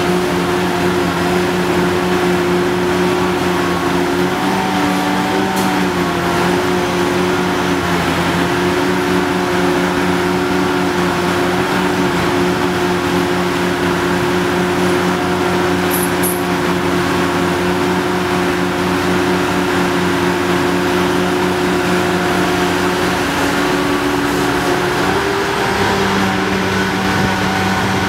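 Hitachi ZX800 excavator's diesel engine running steadily, with its pitch stepping up slightly near the end.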